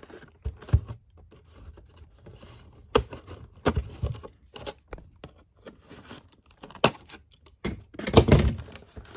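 Scissors snipping through a cardboard toy box and the box being handled, with scattered sharp clicks. About eight seconds in there is a louder rustle and scrape of cardboard and plastic packaging as the box comes open.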